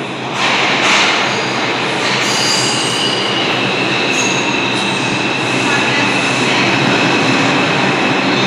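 R142 subway train entering an underground station and running past along the platform, a loud rumble that swells about half a second in. A high steady squeal from the train joins it from about two seconds in.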